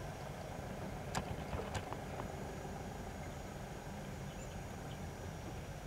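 Steady low outdoor rumble with a few short sharp clicks between one and two seconds in.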